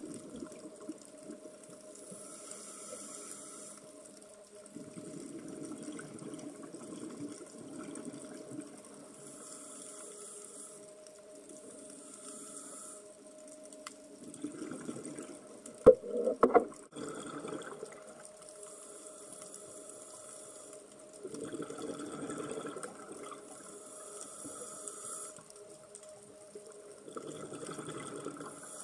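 Scuba diver breathing through a regulator, heard through the underwater camera housing: a hissing inhale alternates with a bubbling exhale about every six seconds, over a faint steady hum. A few sharp knocks sound about sixteen seconds in.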